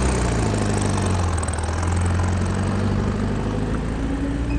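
Land Rover engine of a road train running steadily at low revs as the train rolls slowly past, pulling its trailer carriages.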